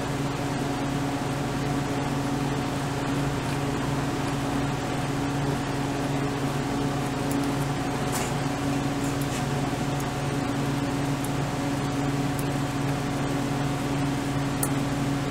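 Steady low mechanical hum of a running motor, such as a fan, with a few faint light clicks about halfway through and near the end.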